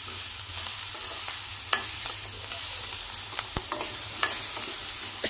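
Sliced capsicum, onion and tomato sizzling as they are stir-fried on high flame in a wok. A metal spatula scrapes through them and clinks against the pan a few times.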